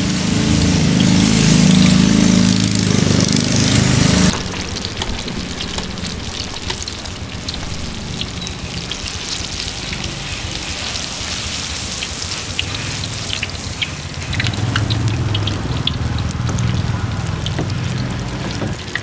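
Batter-coated banana fritters deep-frying in a wok of hot oil: a loud, dense sizzle for about the first four seconds that cuts off sharply, then a quieter steady sizzle with many small pops and crackles. A low rumble runs underneath at the start and again near the end.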